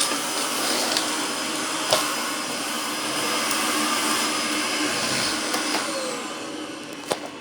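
Argos Simple Value vacuum cleaner's motor running with a steady whirring drone, with a few sharp clicks. It starts to wind down near the end as it is switched off.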